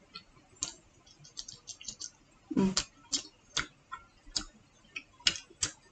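Wooden chopsticks clicking and tapping against a plate and a small glass cup while picking up food: a scatter of irregular light clicks, one of them fuller about halfway through.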